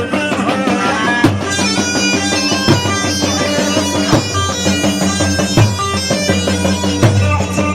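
Iraqi choobi dance music: a held, reedy wind-instrument melody over drum strokes, with no singing.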